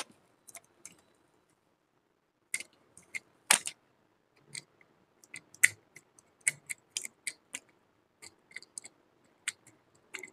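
Irregular clicks and light plastic knocks from a DTR 455 LT aluminium tripod's plastic head and phone-holder clamp being handled and fitted. A few clicks at the start, a short lull, then a steady run of sharp clicks and taps from about two and a half seconds in, the loudest around three and a half and nearly six seconds in.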